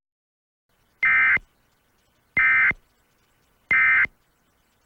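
Emergency Alert System end-of-message (EOM) data tones: three short, identical bursts of two-tone digital data, each a little over a second apart, signalling the end of the alert.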